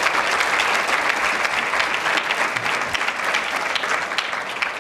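Audience applauding, many hands clapping in a dense patter that eases slightly toward the end.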